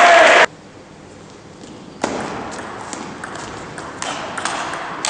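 A loud sound cuts off abruptly in the first half second. About two seconds in, a table tennis rally begins: the celluloid ball is struck by the rubber-faced bats and bounces on the table in sharp, ringing clicks, roughly two a second, with a slight echo of the hall.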